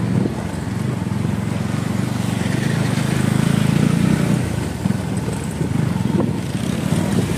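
Motorcycle with a modified exhaust running under way, a low, steady engine note that swells and eases a little, with rushing road and wind noise over it.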